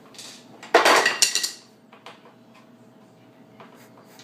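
Loose metal screws clattering in a short rattle about a second in, with a faint metallic ring, followed by a few quiet clicks.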